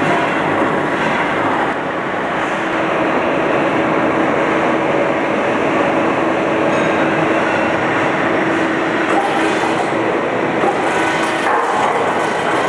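Sheet-metal machinery running with a loud, steady mechanical noise and a steady hum through it.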